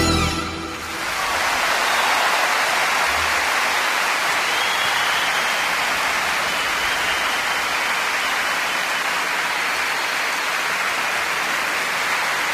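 A steady rushing noise with no rhythm or pitch swells in over the first two seconds as music ends, then holds evenly.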